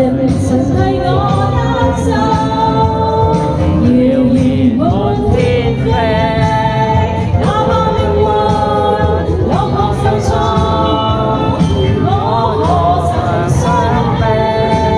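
Music: a pop song's backing track with long held, bending melody notes over a steady low accompaniment, with some singing and no lyrics picked out.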